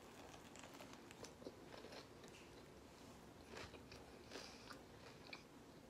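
Faint close-up chewing of a mouthful of fried chicken sandwich, with a few soft crunches and mouth clicks scattered through.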